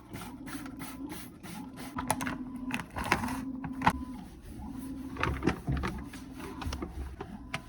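Irregular scraping, clicks and knocks of cleaning work inside a furnace's sheet-metal blower compartment, with a low hum that starts and stops several times.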